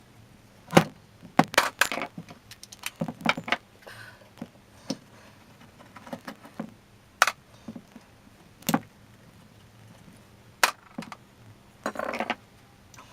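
Metal parts of an old breast drill clinking and knocking as it is taken apart by hand: irregular sharp clicks and taps, about a dozen spread unevenly, with a busier cluster near the end.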